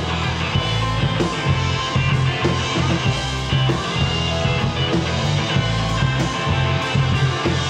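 Live indie rock band playing an instrumental passage between sung lines: two electric guitars over electric bass and a drum kit.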